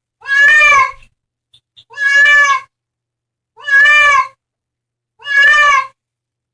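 A cat meowing loudly four times, each meow about half a second long with a slight rise and fall in pitch, evenly spaced about a second and a half apart.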